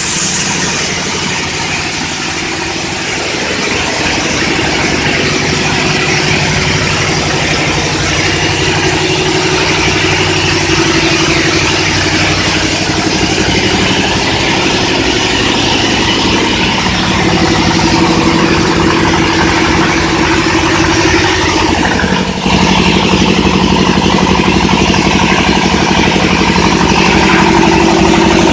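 Industrial engine running steadily. About three-quarters of the way through it briefly dips, then carries on a little louder with a stronger low tone.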